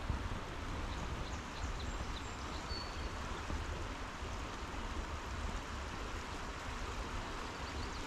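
Shallow river rapids running over rocks, a steady rush of moving water.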